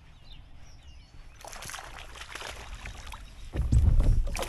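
A hooked fish thrashing and splashing at the lake's surface on the line, a run of sharp splashes starting about a second and a half in. The loudest part comes near the end: a heavy, deep splash.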